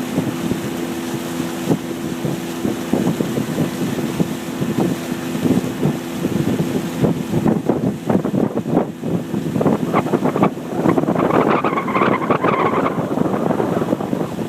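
A motorboat engine's steady hum under heavy wind buffeting on the microphone. The hum fades about halfway through as the wind noise grows louder.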